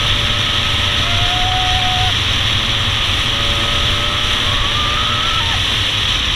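Dirt bike engine running while riding along a trail, its pitch rising briefly about a second in and again about five seconds in, under heavy wind rush on the microphone.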